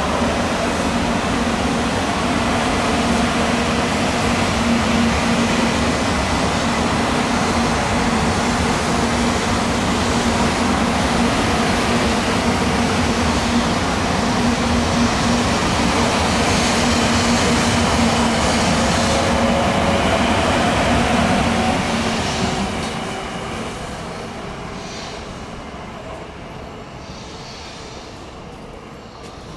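Doctor Yellow (Class 923) Shinkansen inspection train pulling out and running past, a steady rumble of the cars with a held hum and a higher motor whine. The sound dies away steadily from about twenty-two seconds in as the train leaves.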